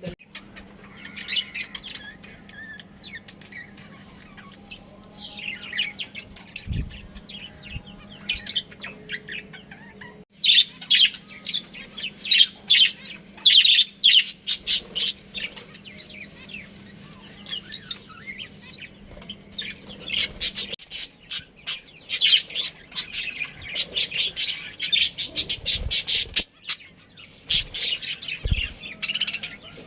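A colony of budgerigars chirping and chattering, with many rapid, short, high chirps that grow busier about a third of the way in and stay dense to the end. A faint steady low hum runs underneath for most of the first two-thirds.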